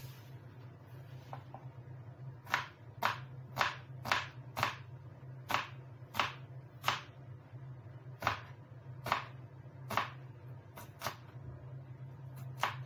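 Kitchen knife chopping a red onion on a plastic cutting board: about a dozen sharp chops at an uneven pace, starting a couple of seconds in, over a steady low hum.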